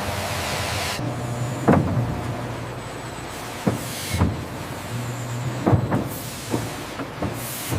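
Sawmill machinery running with a low hum, broken by several sharp knocks about a second apart. The background changes abruptly a few times.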